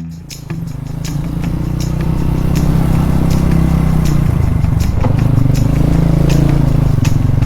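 An engine running steadily at a low, even pitch, with scattered sharp clicks over it.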